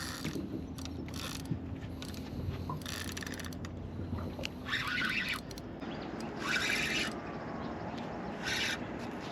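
Fishing reel working in short spells of ratcheting, each about half a second long, every second or two.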